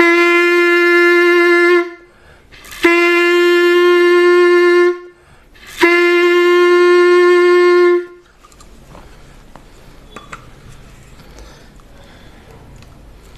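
Clarinet playing the same note three times, each held steadily for about two seconds with a short breath between, then stopping about eight seconds in. The notes are a demonstration of steady air from the abdomen given at one even level for a full tone.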